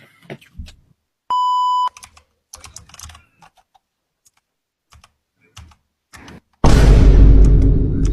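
Computer keyboard typing: scattered keystroke clicks, with a short steady beep about a second and a half in. Near the end a loud, deep, distorted sound cuts in and slowly fades.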